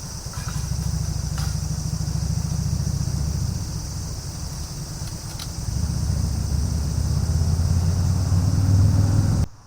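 Car engine and road noise heard from inside the car, a steady low rumble that grows louder about six seconds in and cuts off abruptly near the end.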